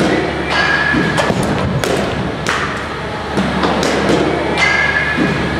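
Bats striking softballs in an indoor batting facility: repeated sharp hits and thuds, two of them, about half a second in and again near the end, followed by a brief ringing tone.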